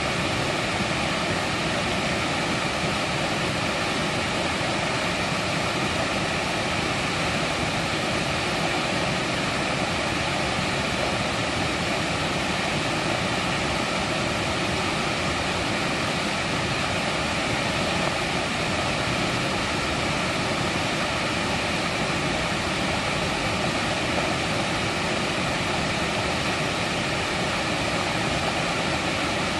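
Mountain stream water rushing and splashing over rocks in a steady, even roar with no pauses.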